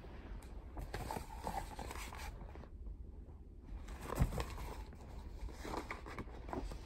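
Pages of a picture book being turned and the book handled: paper rustling and small clicks, with one stronger knock about four seconds in.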